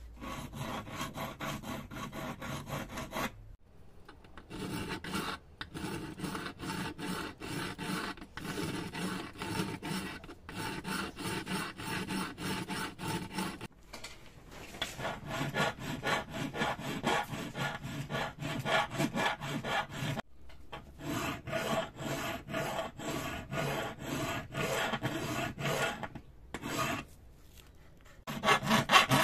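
A hand file rasping back and forth across the metal edge of an old bubble-level body held in a bench vise, in quick, even strokes with a few short pauses.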